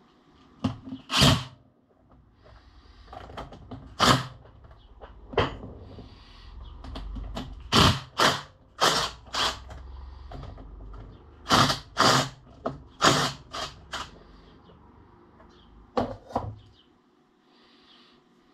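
Metal tools and lathe parts clanking and knocking as they are handled and set down, in about a dozen irregular sharp strikes, with a low rumble through the middle stretch.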